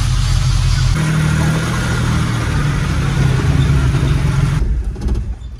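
Chevrolet 5.3-litre V8 swapped into a Nissan D21 pickup, idling steadily just after being started following an engine-bay wash. The level drops off sharply near the end.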